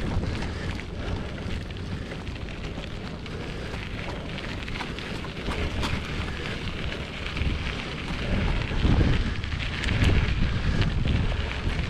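Wind buffeting the microphone: a steady rushing noise with low rumbling gusts that grow stronger in the last few seconds.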